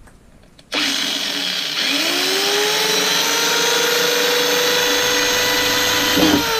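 An electric drill starts up about a second in and bores into a grey plastic sewer-pipe tee. Its motor whine rises as it speeds up, holds steady, then begins to drop near the end.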